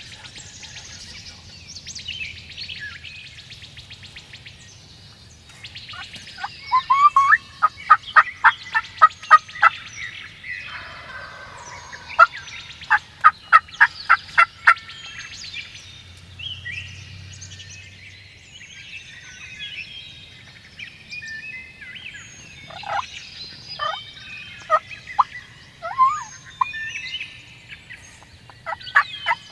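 Wild turkeys calling: two loud runs of yelps at about three notes a second, then more scattered yelps near the end. Songbirds chirp faintly throughout.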